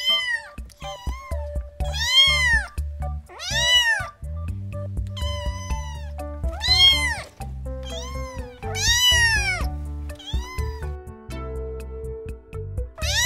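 Kittens meowing repeatedly: a string of drawn-out meows, each rising then falling in pitch, one every second or two, over background music with a steady low bass line.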